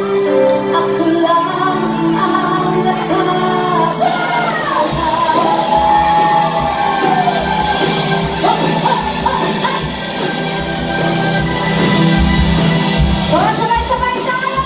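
Live band music with female vocalists singing, backed by electric guitar and bass guitar. A steady low beat comes in about four seconds in.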